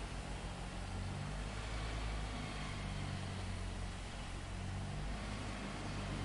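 Heavy machinery running steadily: a constant low engine hum with an even hiss over it.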